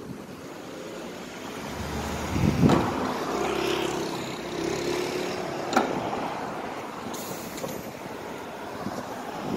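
Trolleybus trolley poles rising through the overhead guide pan and meeting the wires, over steady vehicle noise: a loud knock about two and a half seconds in and a sharp click near six seconds, with a brief steady hum between.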